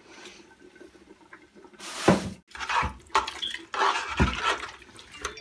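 A spoon stirring raw mince, chana dal and spices into water in an aluminium pot: liquid sloshing and splashing in noisy spells from about two seconds in, with a couple of dull knocks.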